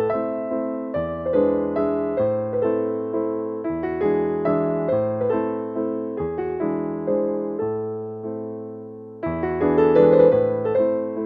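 Background piano music: a gentle tune of struck chords over a bass line, each note fading after it is played, growing louder again about nine seconds in.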